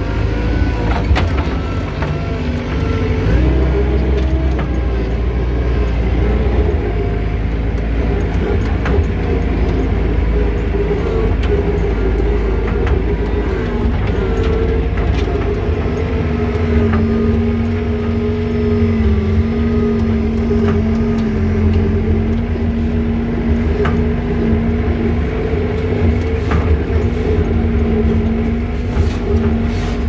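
Komatsu SK07J skid steer loader's engine running loud and continuously, heard from the operator's seat, its note shifting up and down as the machine works. A few short sharp knocks stand out over it.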